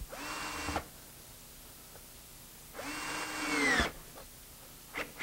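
Handheld power drill driving long screws into wood in two short runs, the first under a second and the second about a second long; the motor's whine rises as each run starts and drops as it stops. A few light clicks follow near the end.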